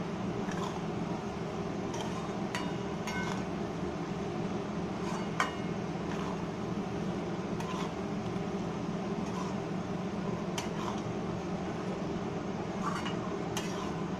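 Metal spatula scraping and knocking against a steel kadhai while stirring jackfruit and potato pieces in masala, with about a dozen irregular clinks, one louder about five seconds in. A steady low hum runs underneath.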